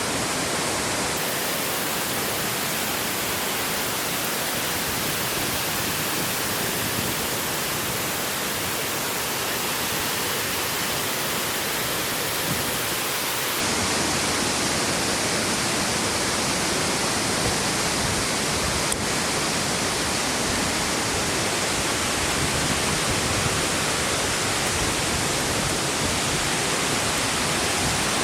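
Steady rush of water from a large mountain waterfall and its stream, a constant noise that grows a little louder and fuller about halfway through.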